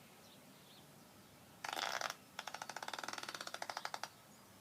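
A fart: a short hissing blast, then after a brief pause a longer rapid fluttering rasp of about a dozen pulses a second.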